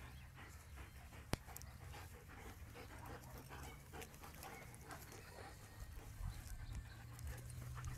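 Young greyhounds panting as they play close by, over a low rumble on the microphone, with one sharp click about a second and a half in.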